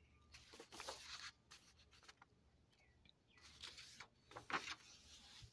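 Faint rustling of paper pages being turned in a thick softcover workbook, in two soft spells.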